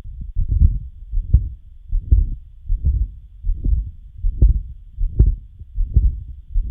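Heart sounds with a patent ductus arteriosus murmur: regular low beats, about four every three seconds, with a continuous murmur filling the gaps between them.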